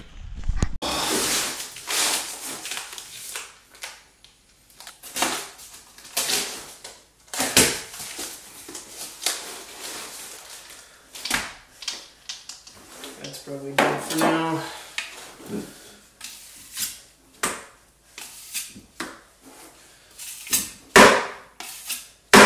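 Metal drywall knife scraping and knocking around the inside of a plastic five-gallon bucket, working clumps of joint compound, in a string of irregular scrapes and clacks.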